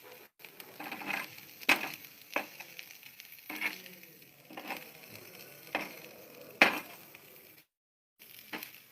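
A person chewing and crunching food, with irregular sharp crisp crackles about once or twice a second.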